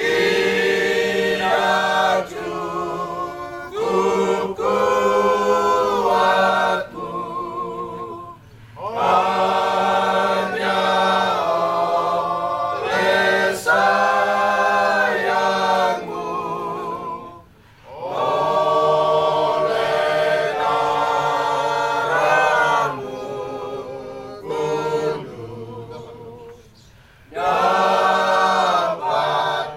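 A choir singing, with several voices in held, sustained phrases and brief breaks between the lines.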